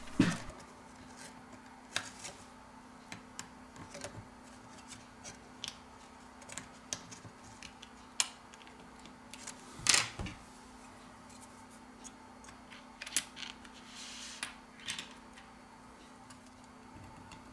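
Scattered small clicks and taps of a plastic pry tool against a smartphone's circuit board and triple rear camera module as the module is worked free, with a sharper click near the start and another about ten seconds in. A faint steady hum sits underneath.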